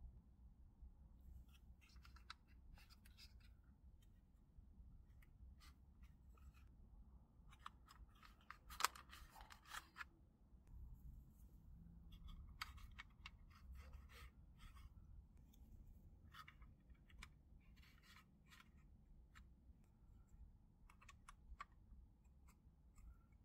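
Faint clicks and scrapes of plastic model-kit parts being handled and held together in a dry fit, with one sharper click about nine seconds in, over a low hum.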